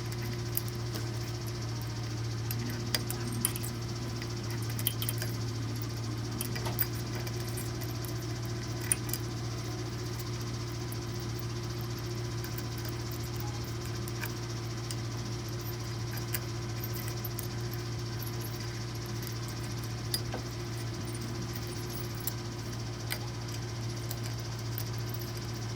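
Steady low machine hum, with scattered light metallic clicks and ticks.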